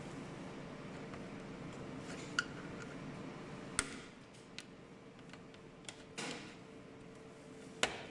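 Scattered sharp clicks and ticks of a small metal tool prying at plastic push-pin clips in a plastic trim panel, the sharpest about four seconds in and near the end, over a faint steady hum.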